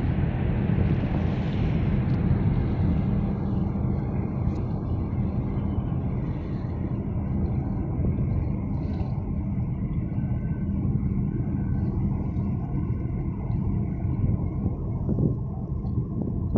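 Boat engine running steadily, a low drone heard from on board, with water and wind noise over it.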